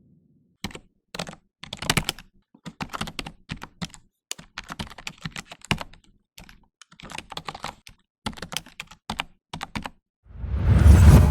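Typing on a computer keyboard: irregular key clicks in quick clusters with short pauses. About ten seconds in, a loud whoosh with a deep rumble swells up, covering the typing.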